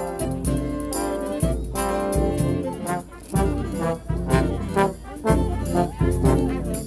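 Marching brass band playing an upbeat tune: trombones close by, with saxophones and a low bass line over a steady beat.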